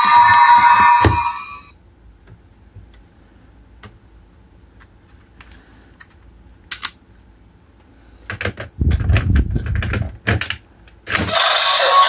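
Plastic clicks and clacks from a bootleg Kamen Rider Geats Raise Buckle toy being handled, with a flurry of clicks and knocks near the end. The toy's loud electronic sound stops about a second and a half in and starts again just before the end.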